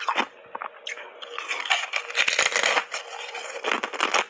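Close-miked chewing of thin ice chips coated in matcha and milk powder: crunching and crackling, sparse in the first second, then dense and busiest about two to three seconds in.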